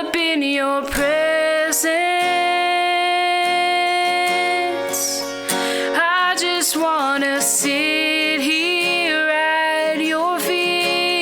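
Worship song: a solo voice singing slow, held notes with vibrato over strummed acoustic guitar.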